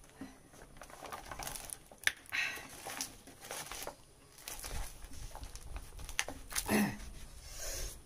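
A large green leaf being folded and crumpled by hand, rustling and crinkling in irregular bursts, with a sharp tap about two seconds in.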